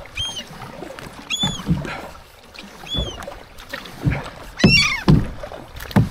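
Gulls giving short, high, arched alarm cries as they dive-bomb a kayaker, about four cries with a quick falling string of them late on, over low knocks of the kayak and water.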